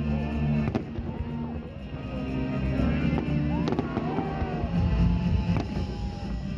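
Fireworks bursting over music. Sharp bangs come under a second in, near four seconds and near six seconds.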